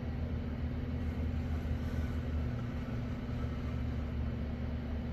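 Steady low mechanical hum of the shop's background machinery, with one constant droning tone and a low rumble beneath it and no distinct knocks or strokes.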